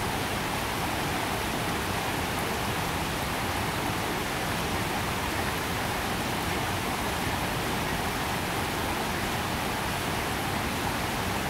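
Steady, even hiss of water, with no distinct chewing or other sounds above it.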